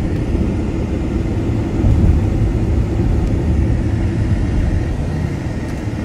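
Car driving along a highway, heard from inside the cabin: a steady low rumble of road and engine noise.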